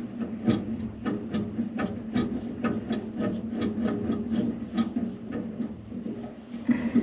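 Small tubing cutter being turned around a copper refrigerant liquid line, ticking regularly about two to three times a second as the wheel works round the pipe.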